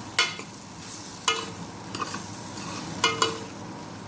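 Tomatoes frying with sautéed onions, garlic and ginger in a pot, a steady sizzle as they are stirred, with four sharp knocks of the stirring utensil against the pot, some ringing briefly.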